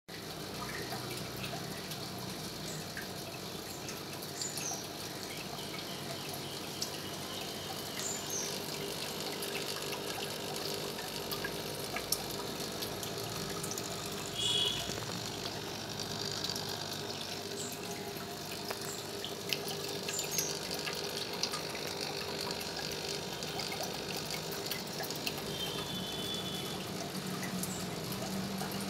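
Aquarium aeration and filter water flow: a steady bubbling, trickling water sound with scattered small pops and ticks.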